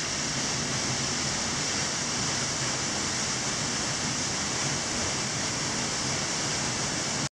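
The Berglistüber waterfall plunging into its pool close by: a steady, loud rush of falling water and spray that cuts off suddenly at the very end.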